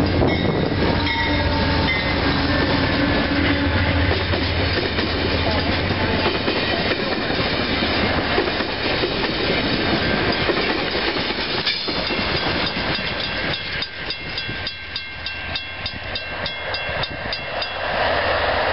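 Amtrak P42 diesel locomotive passing close by at speed, its engine hum strong at first, followed by the steady loud rumble and clatter of passenger coaches rolling past. In the last few seconds there is a regular ringing strike, about three a second.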